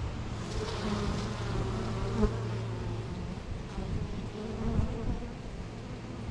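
Honeybees buzzing around an open hive during a frame inspection: a steady hum, with a brief knock about two seconds in and another near five seconds.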